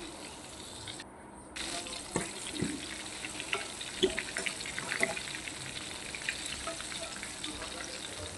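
Chicken pieces deep-frying in hot oil in a wok: a steady sizzle with many crackling pops, and a few sharper clicks of metal tongs and a wire strainer against the pan. The sizzle drops out briefly about a second in.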